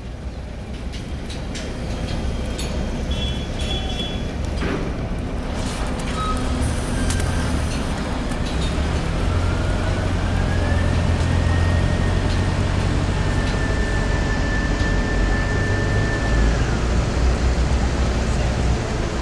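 Street traffic rumbling, with a heavy motor vehicle building up. About eight seconds in a motor whine rises in pitch, holds steady for several seconds and falls away near the end.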